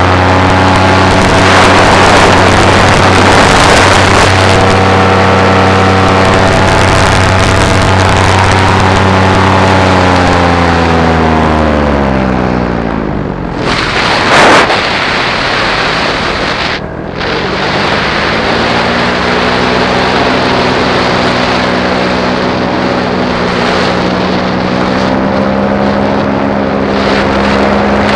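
Paramotor engine running steadily, then throttled back about ten seconds in so its pitch falls, and throttled up again a few seconds later to a steady run. A brief loud rush of noise comes about halfway through.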